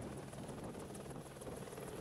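Light helicopter lifting off, its turbine engine and rotor running steadily and faintly, with a fast, even beat from the rotor blades.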